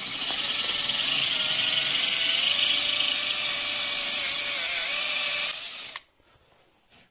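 Power drill with an 8 mm tile bit boring into the limestone of a broken stalactite, running steadily for about six seconds and then stopping suddenly.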